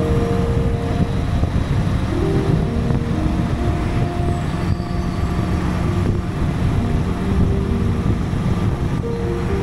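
Honda Goldwing motorcycle with sidecar cruising at a steady road speed: a continuous low rumble of engine and wind on the microphone.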